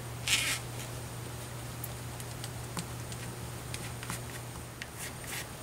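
Faint rustle of a fingertip brushing flour-and-water paste onto a thin spring roll wrapper, with a short rustle near the start and scattered light ticks, over a low steady hum.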